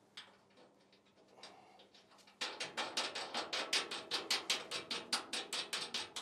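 A ratchet wrench clicking rapidly and evenly, about seven clicks a second, while nuts are run onto the bolts of a crane mast base plate on a steel trailer deck. The clicking starts about two and a half seconds in, after a little faint handling of parts.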